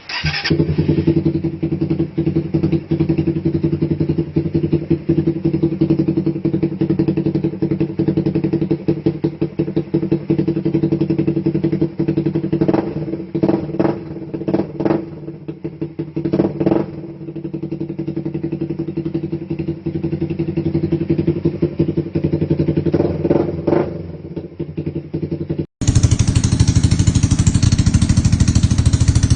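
Motorcycle with a Daeng/Cha/Apido replica exhaust pipe running steadily, with a cluster of quick throttle blips about halfway through and a couple more near the end. It cuts abruptly to a louder, fuller take of the same exhaust.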